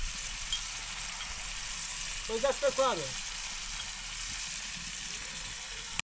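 Chopped greens sizzling steadily as they fry in a steel pan, stirred with a wooden spoon.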